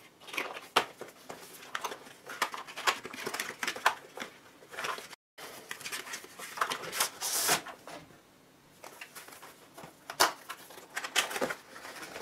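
Hands opening a cardboard e-reader box: irregular scraping, tapping and rustling of cardboard and packaging as the box is slid open. The loudest rustle comes just past seven seconds, and the sound drops out for an instant a little past five seconds.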